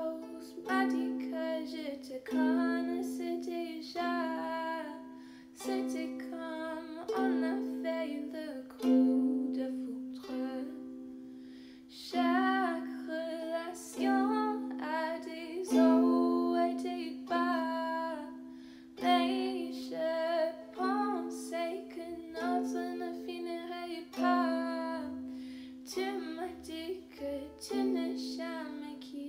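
Gentle ukulele song, plucked chords sounding about every second and a half over a steady low note.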